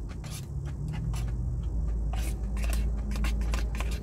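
Eating sounds: chewing, with a plastic fork scraping and tapping in a paper takeaway box and the plastic wrapping crinkling, in a string of short clicks and scrapes. A low steady rumble runs underneath.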